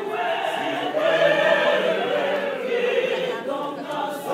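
Mixed choir of men and women singing a cappella, holding sustained chords in several voice parts.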